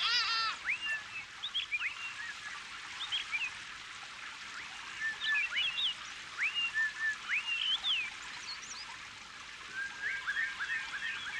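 Birds calling: many short, sharply rising whistled chirps and trills, repeated irregularly over a steady background hiss, with a harsher, richer call at the very start and a quicker run of chirps near the end.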